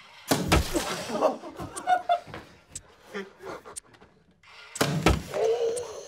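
Two heavy thuds about four and a half seconds apart: hard rubber balls fired from a toy cannon hitting a model battleship costume worn by a person. Muffled voices are heard between the hits.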